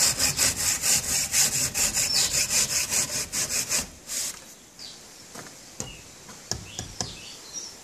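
Hand saw cutting aircrete (foamed concrete) block, trimming its bottom and side edge in place on the wall, in short quick strokes about four a second. The sawing stops about four seconds in, leaving only a few faint taps.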